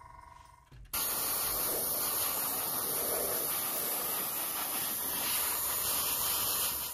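Airbrush spraying paint: a steady hiss of compressed air that starts suddenly about a second in and cuts off just before the end.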